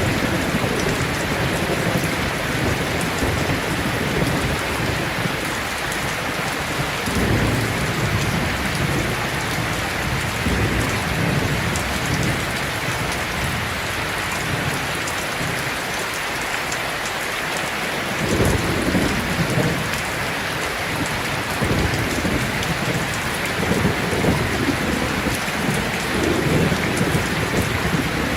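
Heavy rain falling steadily, with thunder rumbling low beneath it: one roll about a quarter of the way in, and a longer rolling rumble from just past halfway to the end.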